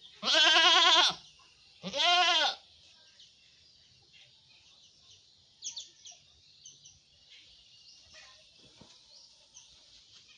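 Black goat bleating twice: a wavering bleat of about a second, then a shorter one about two seconds in. After that only faint rustles and clicks.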